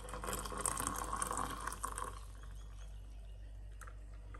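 Coffee pouring in a steady stream from a stainless-steel French press into a ceramic mug, louder for the first two seconds, then softer.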